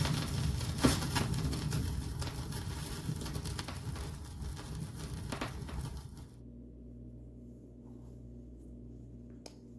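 Close rustling and scraping with several sharp clicks and knocks for about six seconds, the loudest click about a second in. It stops abruptly, leaving a steady low hum with a few faint ticks and one sharp click near the end.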